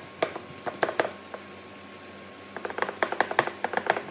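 Fingers patting a ball of ragi and rice-flour dough flat on a wet cloth over an oratti board: two runs of quick soft taps, several a second, with a pause of about a second and a half between them.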